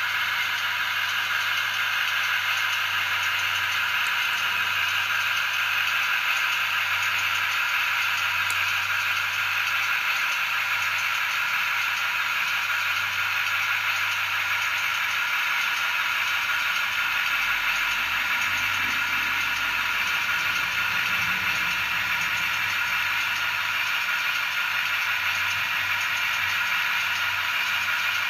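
Zimo 645R sound decoder in an OO-gauge Heljan Class 28 Co-Bo model locomotive, playing a recorded Crossley two-stroke diesel engine running steadily through the model's speaker.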